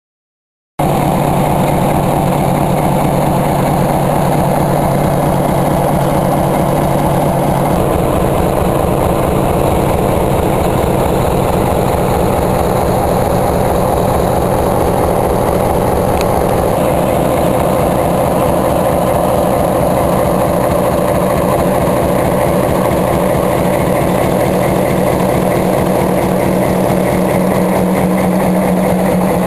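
EMD SW7 switcher locomotive's V12 two-stroke diesel engine idling steadily up close, starting about a second in.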